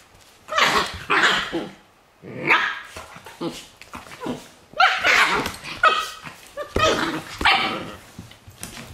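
Dobermanns barking in about six short bursts while they tussle over a bone.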